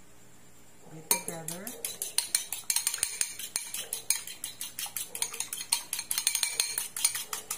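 Metal fork beating an egg with sugar in a ceramic bowl: a fast, steady run of clinks of the fork against the bowl, about eight a second, starting about a second in. It is egg wash being whisked for brushing a pie crust.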